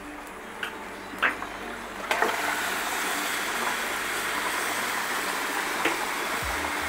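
Marinated goat meat going into a kadai of hot, nearly fried masala: a few light knocks, then a steady sizzle that starts about two seconds in and holds.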